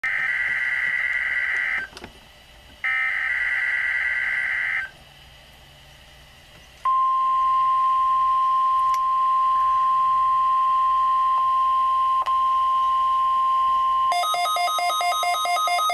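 NOAA Weather Radio Emergency Alert System test tones: two screechy bursts of SAME digital header data, then a pause, then the steady single-pitch 1050 Hz warning alarm tone held for about seven seconds. Near the end, a rapidly alternating two-pitch beeping takes over.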